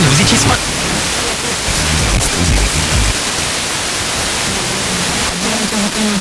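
FM radio receiver being tuned up the band between stations, giving mostly loud, even static hiss. Faint snatches of weak stations break through briefly near the start and again near the end.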